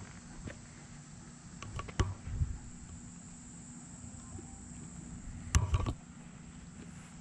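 Steady high trill of insects in the background, with a few short low thumps and knocks about two seconds in and again a little before six seconds.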